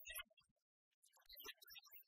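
Speech only: a narrator reading aloud, faint, with a short pause in the middle.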